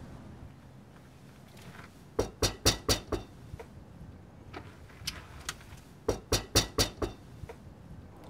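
Knocking on a door: two rounds of quick knocks, about five and then about seven, each knock a sharp rap.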